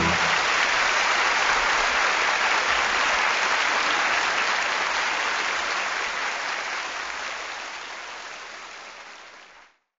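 Live audience applauding, fading out over the last few seconds.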